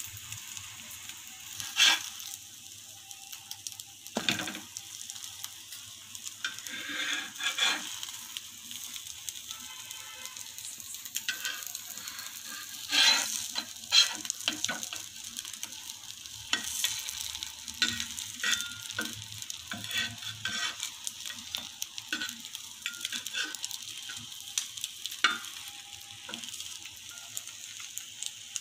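Egg-filled bread slices frying in oil on a tawa, a steady sizzle throughout. A metal spatula scrapes and clicks against the pan a few times as the slices are turned, loudest about halfway through.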